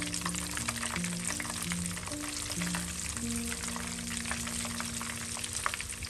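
Flour-coated pieces deep-frying in hot oil in a pan: a dense, steady sizzle full of sharp crackling pops. Soft background music plays underneath.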